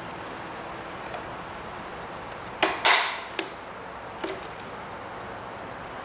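Plastic parts of a robot vacuum cleaner being handled and clicked into place: a sharp snap about two and a half seconds in, then a short rattle and two lighter clicks, over a steady hiss.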